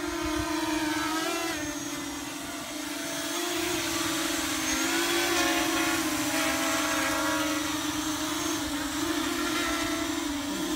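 FPV racing mini quadcopter with 2205 2300 kV brushless motors spinning 5-inch props, hovering low: a steady buzzing whine whose pitch wavers up and down with the throttle. It dips a little about two seconds in, then swells again.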